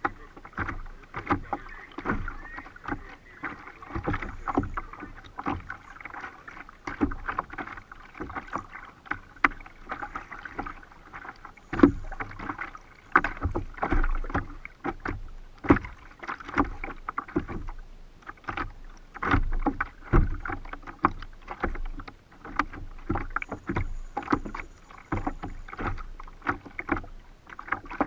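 Choppy water slapping and splashing against a plastic sit-on-top kayak hull, with irregular knocks several times a second over a steady wash of water. The hardest knock comes about twelve seconds in.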